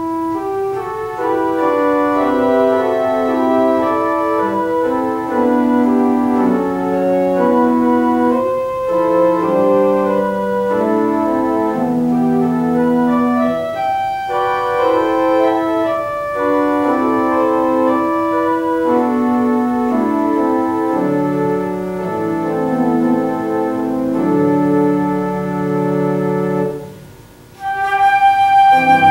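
Organ playing a slow prelude in held, changing chords. Near the end it pauses briefly and a flute comes in with a held note.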